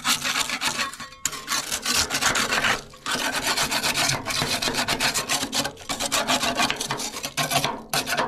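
Spatula scraping caked soot off the inner surfaces of a Mimsan solid-fuel central-heating boiler, in quick repeated strokes that pause briefly a few times.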